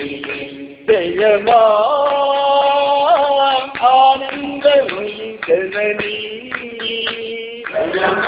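A man singing a Hindu devotional bhajan. After a short break about a second in, he holds long sung notes joined by sliding, ornamented turns of pitch.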